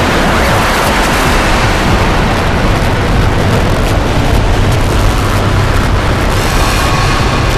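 VCV Rack software modular synthesizer patch playing booming, thunder-like drums under a dense wash of loud synthesized noise. A steady high tone comes in about six and a half seconds in.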